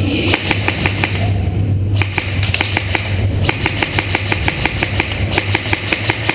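Airsoft guns firing: strings of sharp, snapping shots come irregularly at several a second, over a steady low hum.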